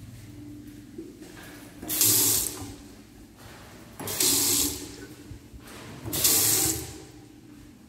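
Bathroom sink faucet turned on in three short spurts, about two seconds apart, with water gushing into a ceramic basin for about half a second each time.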